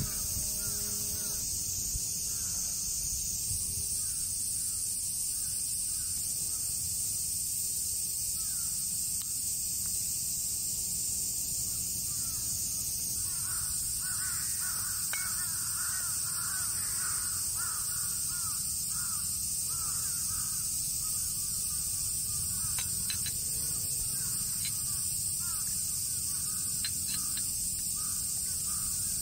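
Outdoor ambience: a steady high-pitched insect drone, with a bird calling over and over in short harsh notes from about halfway through, loudest just after the middle.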